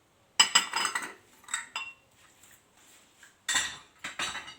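Utensil clinking and scraping against a bowl or dish in several short clattering bursts, the loudest about half a second in and again about three and a half seconds in, as ingredients are added to a filling.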